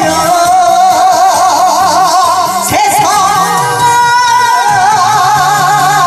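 A woman sings a Korean trot song through a microphone and PA speaker over a backing track. She holds long notes with a wide, wavering vibrato, and the pitch steps up about halfway through.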